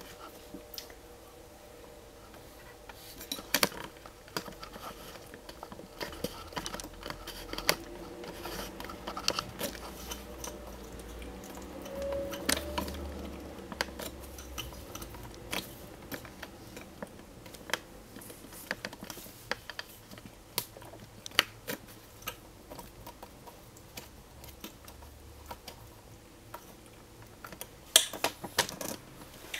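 Camera handling noise: scattered light clicks and rubs as the camera is adjusted, with a low rumble for several seconds in the middle.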